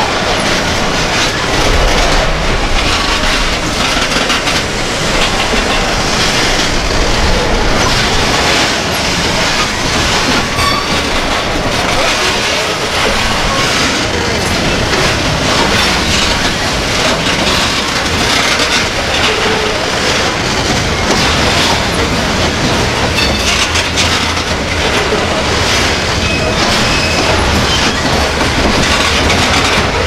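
Covered grain hopper cars of a freight train rolling past close by: a steady rumble of steel wheels on the rails with continual clickety-clack.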